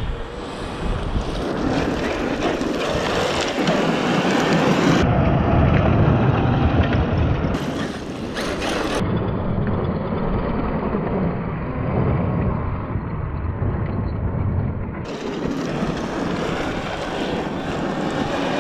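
Large electric RC off-road trucks driving hard over loose dirt and stones, with heavy wind noise on the microphone. The sound changes abruptly several times.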